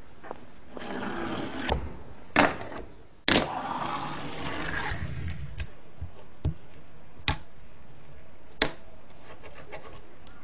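A fingerboard's small wheels roll over a hard surface, and the deck clacks sharply as it pops and lands: two loud clacks about a second apart, about two and a half seconds in, then three lighter clicks spaced roughly a second apart.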